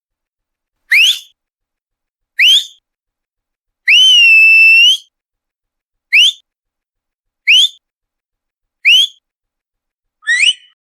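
A person whistling with the mouth: seven short whistles, each sliding upward in pitch, spaced about a second and a half apart; the third is held steady for about a second before flicking up, and the last one wavers.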